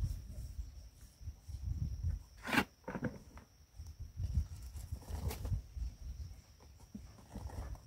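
A paper flour bag rustling as wheat flour is poured from it into a plastic cup, with a few sharp crinkles about two and a half and five seconds in, over uneven low rumbling.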